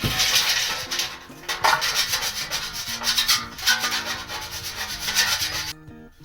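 Repeated rough sanding strokes, a scraping hiss with each stroke, which stop suddenly near the end.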